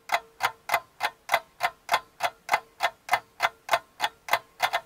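Clock-like ticking, about three sharp ticks a second, with a faint steady tone underneath.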